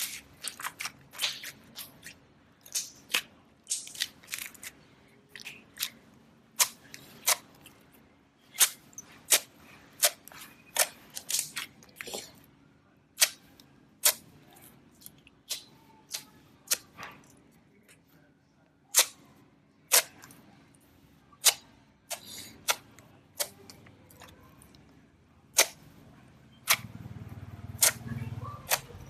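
Gold slime being worked by hand, giving off a string of sharp, irregular clicks and pops as air pockets in it burst. Near the end a softer, low squishing joins in.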